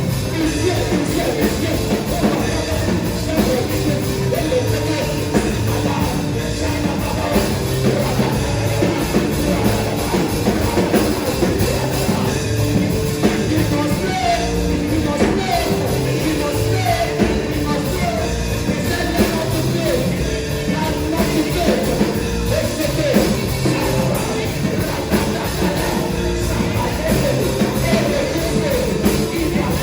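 Gospel worship music: voices singing over a steadily playing band.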